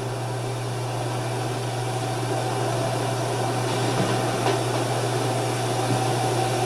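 Steady low electrical hum with hiss over it, with a couple of faint soft taps around the middle.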